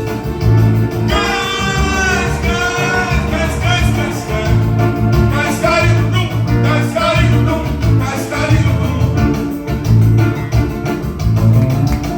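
Live band music with a steady beat and a singer's voice coming in about a second in.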